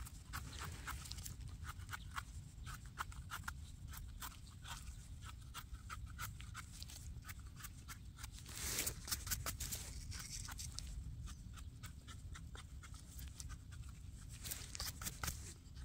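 Small knife blade scraping and paring the dirt-caked stem base of a freshly picked porcini mushroom: a run of short scratchy strokes, with a louder burst of them about nine seconds in.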